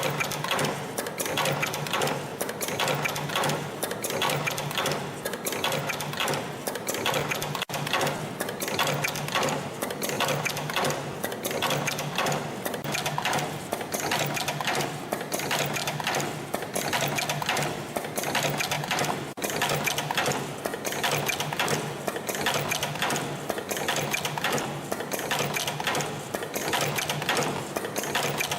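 CNC extension spring machine running in production, coiling 0.7 mm wire into extension springs and forming U hooks: a fast, even mechanical clatter with a regular pulse that repeats steadily.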